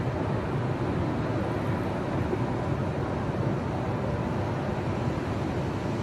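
Ocean surf breaking and washing up a sandy beach, heard as a steady low rumble with no single break standing out.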